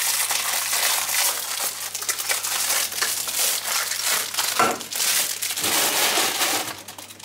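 Packaging being handled and crumpled while a parcel is unpacked, a dense crinkling with brief pauses that eases off near the end.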